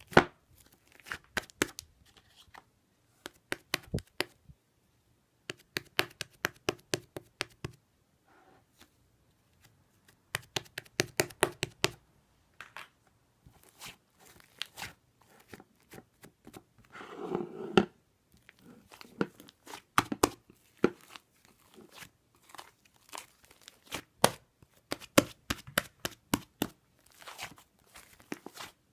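Soft, fluffy chocolate whipped-cream slime being squeezed and poked by hand, making rapid clicking and popping in bursts of a second or two with short pauses, and one longer, denser squish about two thirds of the way through.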